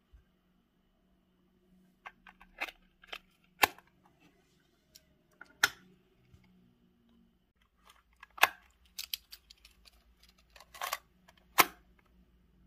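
A string of sharp plastic clicks and snaps from a Sony M-455 microcassette recorder being handled as a Sony MC-60 microcassette is loaded into it and its cassette door is shut, with a few much louder snaps among softer ones.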